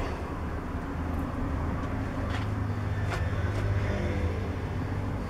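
Metal lathe running with a steady low motor hum, a few faint ticks over it.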